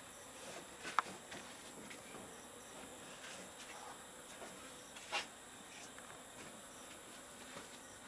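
Faint, steady high-pitched insect chorus, with two light clicks from handling, one about a second in and a louder one about five seconds in.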